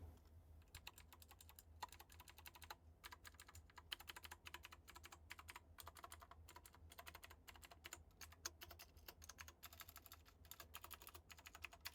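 Keys of an HP GK320 mechanical gaming keyboard being pressed one after another: a quick, uneven run of faint clicks, several a second. Each key sounds slightly different.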